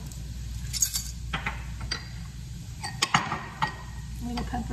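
A few light clicks and clinks of small kitchen containers being handled beside a skillet of sauce, over a low steady hum.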